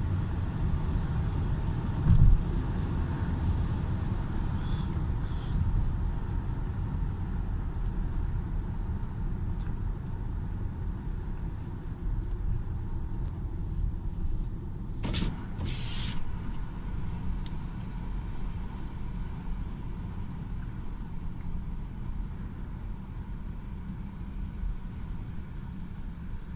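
CSX freight train of gondola cars rolling past, a steady low rumble that slowly fades, with a brief knock about two seconds in and a few sharp clicks about fifteen seconds in.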